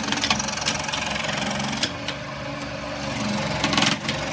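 A motor running steadily with a low hum, with sharp clicks and knocks scattered over it and a short louder clatter near the end.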